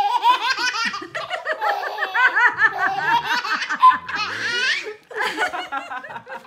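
A baby's belly laugh: rapid, high bursts of giggling, almost unbroken, breaking off for a moment about five seconds in and then starting again.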